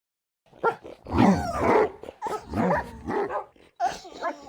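Dog vocalizing in a quick run of short whining, grumbling calls with sliding pitch, starting about half a second in and loudest about a second in.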